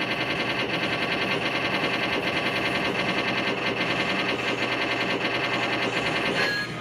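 Arcade fruit machine's Win Wall bonus game playing a rapid, steady electronic ticking over held electronic tones while the last prize box is being revealed; it cuts off about six and a half seconds in.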